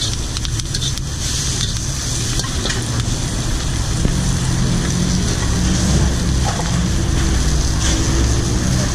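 Gas wok burner running with a steady low rumble under a wok of frying vegetables, with a light sizzle and a few faint knocks of a metal spatula near the start.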